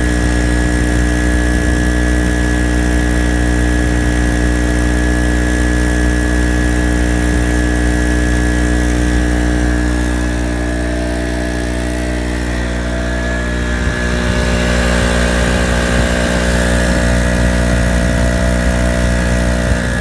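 Harbor Freight Storm Cat 900-watt generator's 63cc two-stroke engine running steadily under an electrical load.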